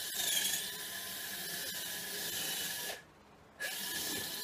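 Electric drill running with a steady high whine, drilling a rivet hole at the corner of an aluminium-edged road case; it stops about three seconds in and starts again about half a second later.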